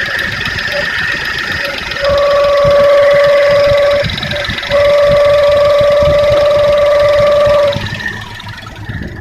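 Suzuki Jimny JA11's F6A three-cylinder engine running with a loud, steady, pure whistle from an emission control hose. The whistle sounds for about two seconds, stops briefly, then sounds again for about three seconds, over fainter engine noise.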